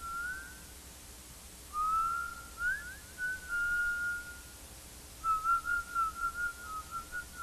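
A person whistling a slow, wavering tune in three phrases with pauses between them. The pitch slides and warbles around one middle note, over a faint steady hiss.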